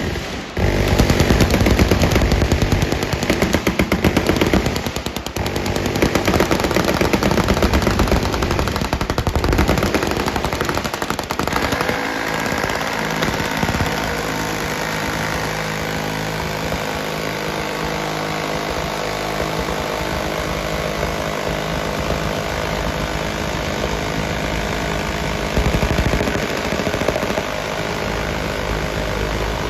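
Sustained, overlapping automatic gunfire from machine guns on a firing line. The rapid fire is densest for the first dozen seconds, then settles into a steadier continuous din.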